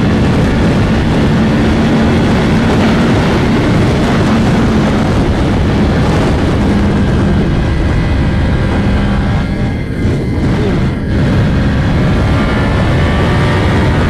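Yamaha R1M's crossplane inline-four running steadily through its new aftermarket exhaust while riding, with heavy wind rush. The engine note holds steady, with two brief dips about ten and eleven seconds in.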